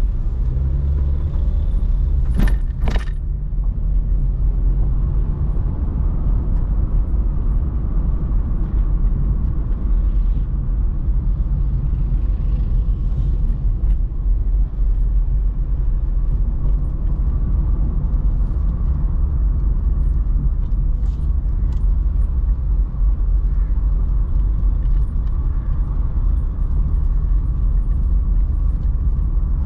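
Car driving along a road, a steady deep rumble of engine and tyres, with a pair of short sharp clicks about two and a half seconds in.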